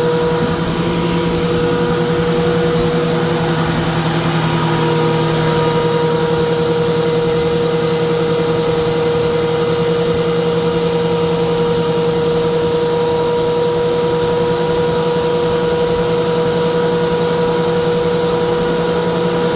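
Harbor Freight Hercules wood planer running steadily, its motor giving a constant hum with a higher tone that strengthens slightly about four seconds in.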